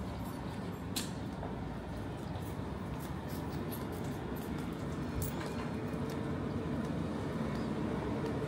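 Steady low rumble of city street background noise, with a sharp click about one second in and another about five seconds in.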